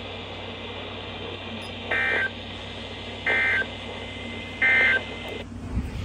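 NOAA Weather Radio end-of-message data bursts from a Midland weather radio's speaker: three short, buzzy digital bursts about 1.3 s apart over faint radio hiss, signalling the end of the tornado warning broadcast. A brief low rumble near the end.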